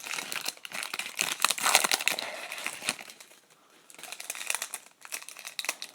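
Wrapper of an O-Pee-Chee Platinum hockey card pack crinkling and crackling as it is torn open and handled, with a short lull a little past the middle.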